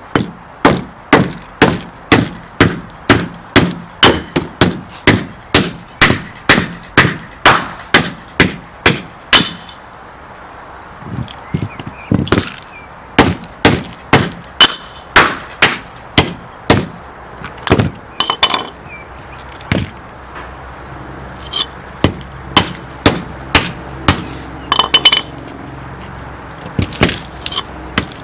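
A hatchet chopping repeatedly into the plastic case of a sealed lead-acid battery, striking about twice a second, with short breaks about ten and twenty seconds in. Some blows ring briefly.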